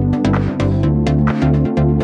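Electronic dance music with a steady beat and pulsing bass notes.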